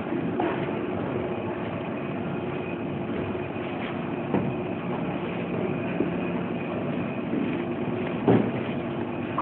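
Electric motor running on a variable-frequency drive, a steady hum and whine, with a few faint clicks.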